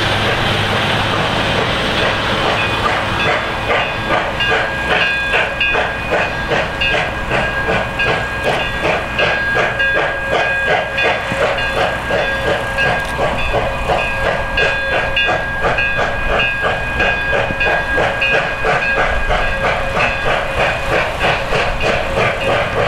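Iowa Interstate 6988, a Chinese-built QJ 2-10-2 steam locomotive, working a loaded freight train with an even, quick rhythm of exhaust chuffs.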